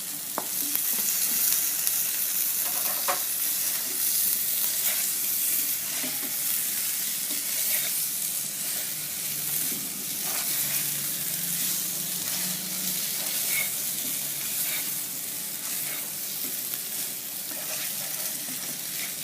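Boiled potato cubes sizzling in hot oil in a wok, stirred and tossed with a spoon that scrapes the pan now and then.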